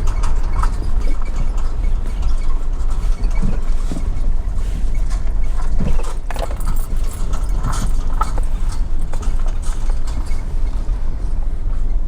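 Vehicle moving slowly over a rough dirt campground track: a steady low road rumble with scattered knocks and rattles from bumps and stones.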